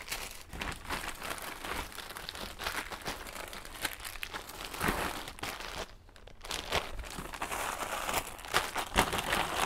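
Packaging crinkling and rustling as it is handled, in irregular bursts, with a brief lull about six seconds in.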